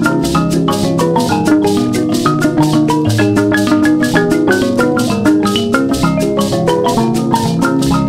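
Background music: quick, bright melodic notes over a fast, steady beat.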